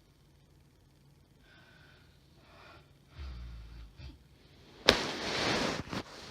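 A woman snoring in her sleep: after a quiet stretch, a low snore about three seconds in, then a sudden loud snorting gasp lasting about a second near the end. The uploader takes these pauses and gasps for sleep apnea.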